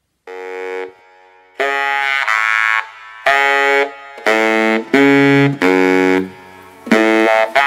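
Music: the opening of a homemade song, a run of held chords, each lasting about half a second to a second, with short gaps between them in an uneven rhythm.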